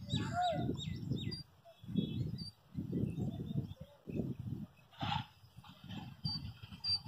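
Birds chirping: a run of quick falling chirps in the first second and a couple of short high whistled notes near the end, over irregular low rumbling gusts that come and go about once a second.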